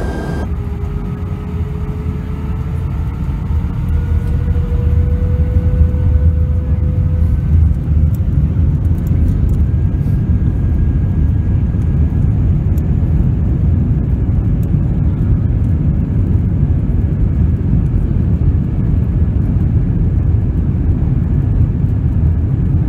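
Jet airliner's engines spooling up to takeoff thrust, heard inside the cabin: a whine that rises slowly over the first ten seconds above a heavy, steady rumble as the plane accelerates down the runway.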